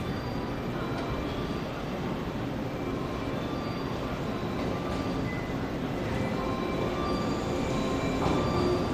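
JR 115 series electric multiple unit running in toward the platform, its running noise growing steadily louder as it approaches.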